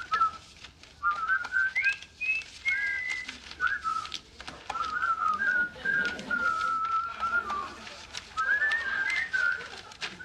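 A person whistling a tune: short wavering phrases with brief pauses between them, over faint clicks.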